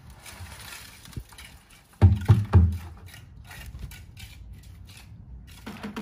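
Wet concrete being tipped from a bucket into the hollow cores of cinder blocks and worked in by hand with a trowel: irregular scraping and slopping, with a few heavy dull thuds about two seconds in.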